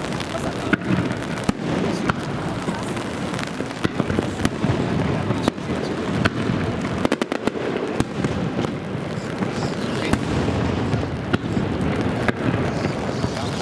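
Aerial fireworks bursting, a run of sharp bangs with a quick cluster of crackling reports about seven seconds in. Underneath is a steady patter of rain on the umbrella over the microphone.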